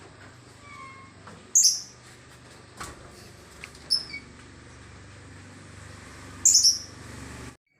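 A bird chirping: loud, short, high calls about every two and a half seconds, over a faint low steady hum.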